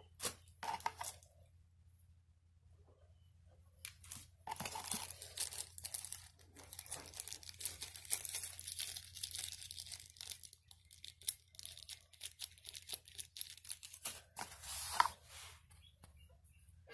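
Thin plastic packaging bag crinkling and rustling as it is handled: a short burst about a second in, then a long stretch of crinkling from about four seconds in, loudest near the end.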